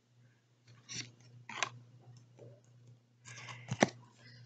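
A stack of glossy basketball trading cards handled in the hands, the cards sliding against each other. There are a few short, soft rustles, then a quicker cluster of crisp clicks and rustles near the end.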